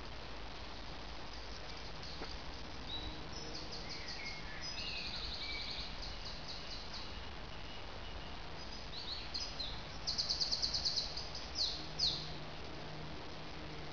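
Songbirds singing: fast trills of repeated high notes, then two quick downward-swept notes near the end, over a steady low background hum.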